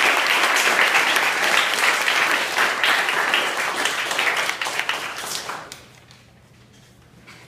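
Audience applauding at the end of a talk, dying away about six seconds in.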